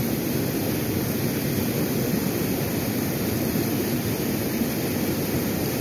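Steady rush of fast, high-flow river water spilling over a low concrete weir.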